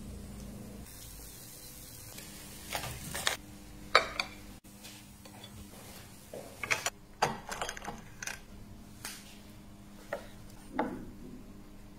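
Kitchen handling sounds: scattered clicks and knocks of utensils and food being handled, with a knife cutting on a wooden board near the end. A low steady hum runs underneath.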